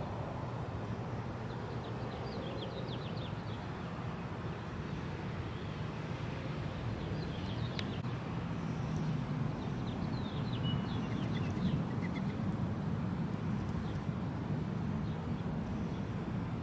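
Outdoor ambience: a steady low rumble of distant traffic, with small birds chirping in short bursts now and then.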